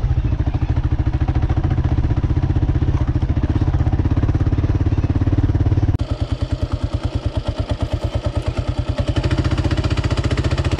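Kawasaki KLR650's single-cylinder four-stroke engine running as the motorcycle rides a dirt trail. About six seconds in the note changes suddenly to a slower, more evenly pulsing low beat, as at low revs.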